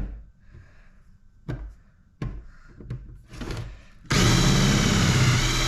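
A few light knocks from handling, then about four seconds in an electric drill starts abruptly and runs loud and steady, drilling out a rivet in an aluminum crutch with a large bit.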